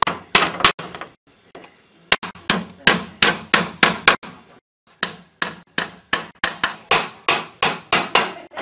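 Repeated hard knocks, like hammering, at a steady pace of about three a second, in three runs with short pauses between them.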